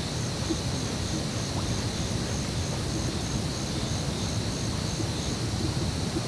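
Rural outdoor ambience: a low wind rumble, with a steady high insect drone and a second high insect chirp pulsing about three times a second that stops near the end.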